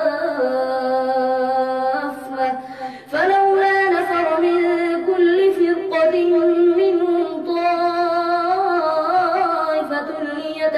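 A boy's voice reciting the Quran in a melodic, drawn-out chant, holding long notes that bend slowly in pitch. About three seconds in it breaks off briefly for a breath, then resumes on a higher held note.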